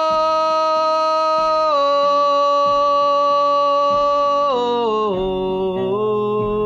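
Song soundtrack: a singer holding one long sung note, dropping a step about two seconds in and sliding lower near five seconds, over a quiet accompaniment.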